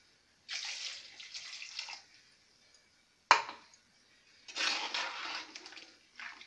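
Water poured into a clay pot of simmering mutton curry, splashing in two pours of a second or two each, with one sharp knock between them.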